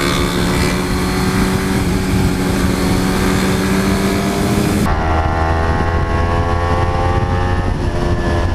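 Onboard sound of sport motorcycles riding at speed. At first an engine note holds steady and climbs slightly under wind rush. About five seconds in the sound switches abruptly to a different, deeper engine note with less wind hiss, which then rises slowly.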